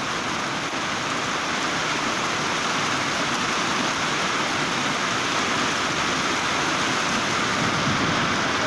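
Steady rain falling, an even hiss of many drops that neither rises nor falls.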